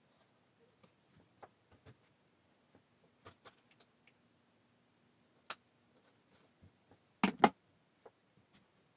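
Scattered light knocks, taps and rustles of things being handled while a bed is made and a bedroom tidied, with a louder double knock about seven seconds in.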